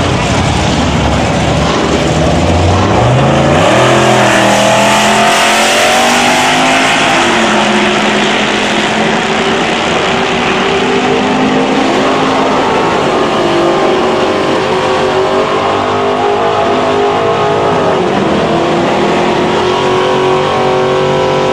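Drag-racing cars at full throttle, among them a 1973 Dodge Charger's 400 Magnum big-block V8, launching off the line and running down the strip. Engine pitch climbs in steps over the first few seconds, then holds high with several slides in pitch.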